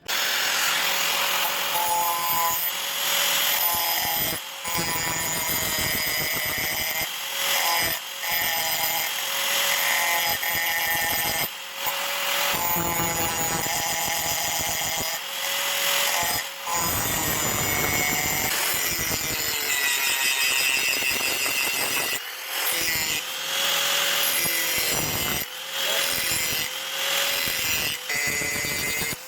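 Power tool grinding steel for a Bowie knife blade, running almost without pause, its whine shifting in pitch as the tool is pressed and eased, with brief dips each time it is lifted off the work every few seconds.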